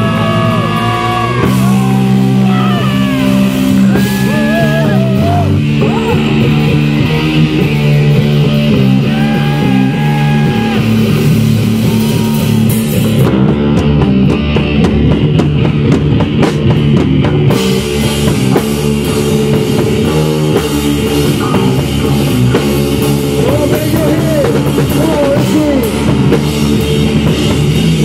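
A three-piece rock band playing live: a loud instrumental passage of electric guitar, bass guitar and drum kit, with the guitar holding long notes that bend and waver. The bright top end drops away for about four seconds midway.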